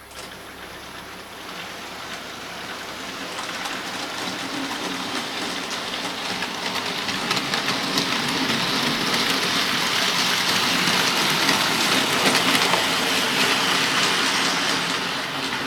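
OO gauge model train running along the track, its wheels rumbling and clicking rapidly over the rails. It grows steadily louder as it approaches, then drops away sharply near the end.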